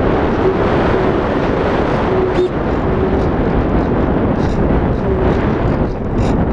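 Airflow rushing over a model glider's onboard camera in low gliding flight: a loud, steady rush of wind noise, with a faint low tone that comes and goes.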